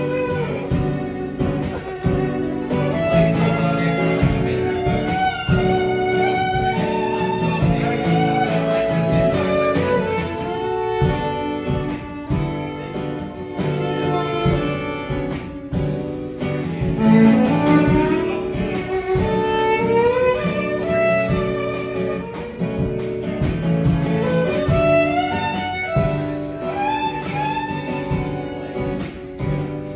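Live acoustic band playing: fiddle prominent over strummed acoustic guitar and a drum kit.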